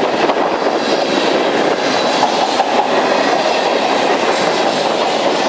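Freight cars of a mixed freight train, tank cars and covered hoppers, rolling past close by: a steady rumble of steel wheels on the rails with light clicking over the rail joints.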